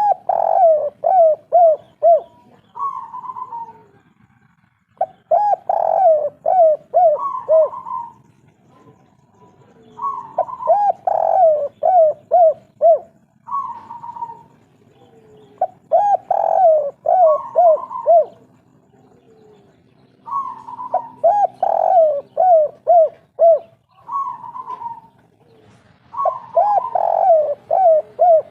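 Spotted dove (tekukur) singing its 'kuk 3' song: a phrase repeated about every five seconds, each a higher opening note followed by a quick run of four or five short coos.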